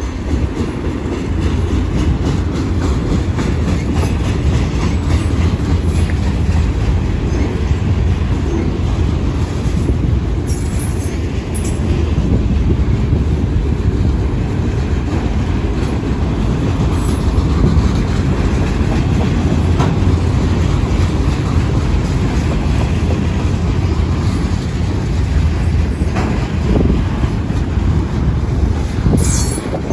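Manifest freight train rolling past: a steady rumble of the cars with wheels clicking over rail joints, and a few brief high-pitched wheel squeals.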